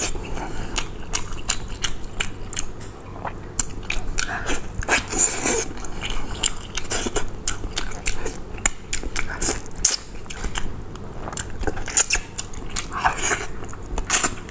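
A person eating close to the microphone: chewing and biting food, with many short, irregular clicks and smacks.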